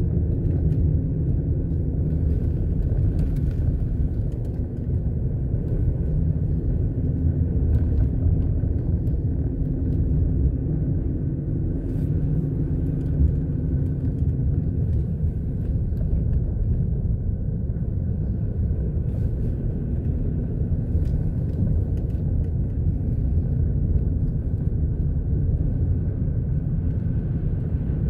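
Steady low rumble of a car in motion, engine and tyre noise heard from inside the cabin, with a few faint ticks scattered through it.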